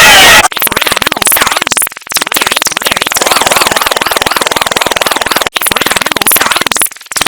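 Harsh, heavily distorted digital audio effect: a loud, dense buzz of rapid pulses. It opens with half a second of saturated noise and drops out briefly three times.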